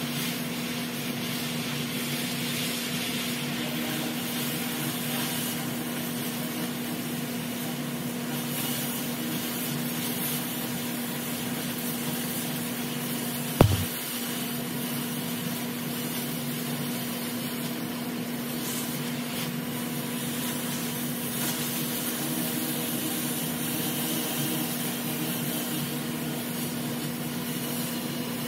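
Oxy-fuel cutting torch hissing steadily as it cuts through a rusty square steel tube, with a steady low hum under it. A single sharp pop about halfway through.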